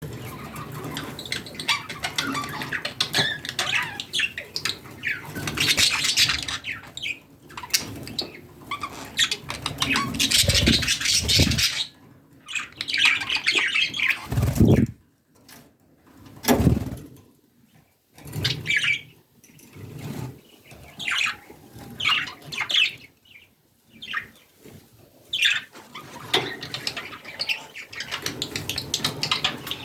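Budgerigars chirping and chattering in quick short calls, busy at first and sparser with pauses from about halfway, with a few low thumps in between.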